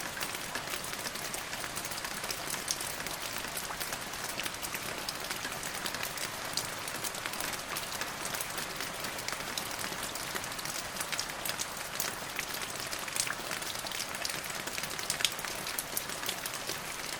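Steady rain falling, a continuous hiss with many separate droplets ticking sharply on a hard surface.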